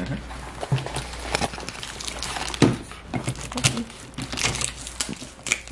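Hands handling shifter parts and their packaging on a car's bodywork: irregular light clicks, small knocks and rustles, one sharper knock about halfway through, over a low steady hum.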